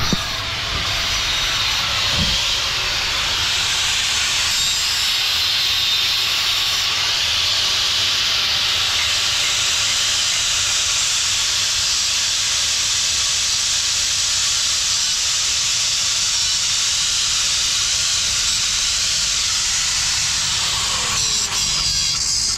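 Compressed-air blow gun hissing steadily as it blows out a truck's exposed rear axle spindle and brake assembly, cutting off about a second before the end.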